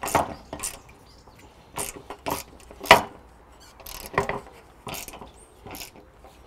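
Small metal spanner tightening a nut and washer onto the pin of an aluminium pergola louvre: about ten sharp metallic clicks at uneven intervals as the spanner is turned and reset, the loudest about three seconds in.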